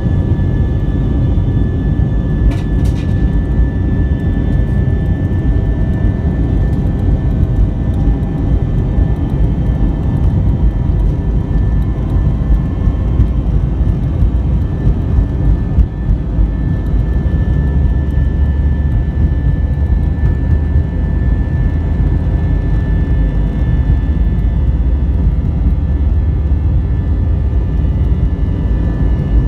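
Airbus A321's CFM56 jet engines heard from inside the cabin during the takeoff roll: a loud, steady high whine over a deep rumble that grows stronger about halfway through as the aircraft gathers speed. A single brief click sounds near the start.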